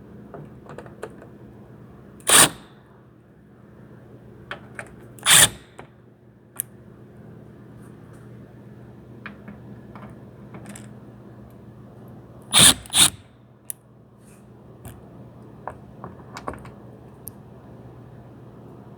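Sharp metallic clicks and clacks of hand tools and small bolts while Torx bolts are taken out of a car's shield, with four loud clacks about 2, 5 and 13 seconds in (the last two close together) and many lighter clicks. A steady low hum runs underneath.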